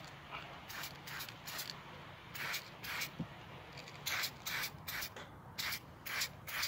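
Aerosol spray-paint can hissing in a dozen or so short bursts, each a fraction of a second long, misting pink paint onto a plastic blaster shell.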